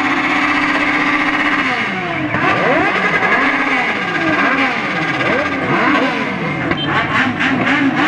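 Engine held at steady high revs, then revved up and down over and over, with a few sharp cracks near the end.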